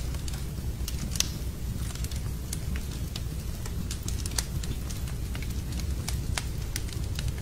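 Wood fire crackling in a fireplace: irregular sharp pops and snaps over a steady low rumble, with louder pops about a second in and a little past four seconds.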